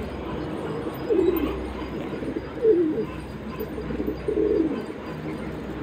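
Domestic pigeons cooing, three low coos about a second and a half apart.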